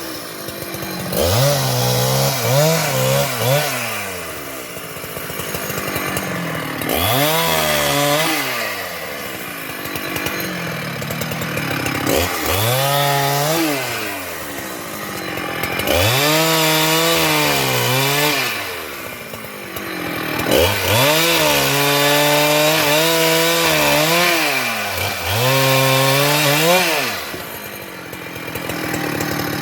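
Large Husqvarna two-stroke chainsaw revved to full throttle and held there in repeated bursts of a few seconds each, dropping back to a low idle between them, as it cuts into a sengon (albizia) trunk.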